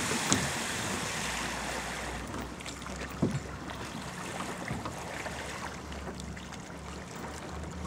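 Wind buffeting the microphone over choppy open water, with a faint steady low hum underneath and a short knock about three seconds in.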